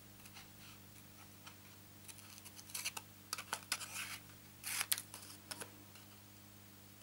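Small paper-snips scissors cutting stamped rose red cardstock: a run of short crisp snips, sparse at first, coming thick from about two seconds in and loudest a little before five seconds.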